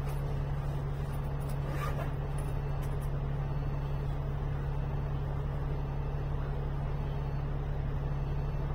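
Alexander Dennis Enviro500 MMC double-decker bus idling at a standstill. It is heard from on board as a steady, even engine hum.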